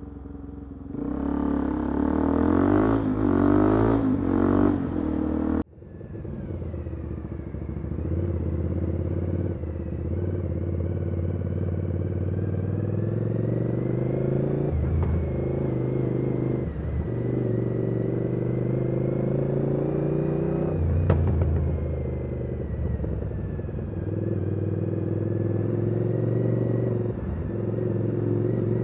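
Motorcycle engine running on the move, its pitch rising and falling with throttle and gear changes. A louder stretch of rushing noise about a second in stops abruptly a few seconds later.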